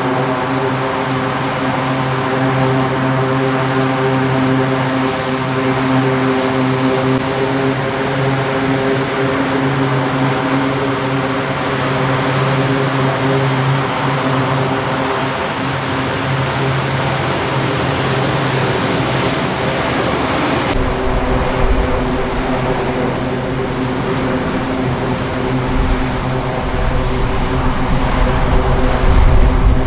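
Four-engine C-130H Hercules turboprops running as the aircraft taxis: a loud, steady drone with a layered propeller hum. About two-thirds through, a deep rumble joins the drone, and the noise builds toward the end as the aircraft powers up on the runway for takeoff.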